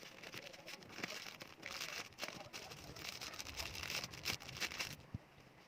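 Paper and packaging rustling and crinkling in handling, with scattered small clicks and taps, easing off near the end.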